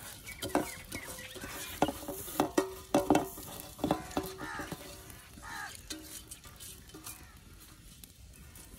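Steel platter clanking and ringing against the rim of a steel cooking pot as rice is swept off it by hand into the water. A run of sharp clanks comes through the first four seconds, then it goes quieter.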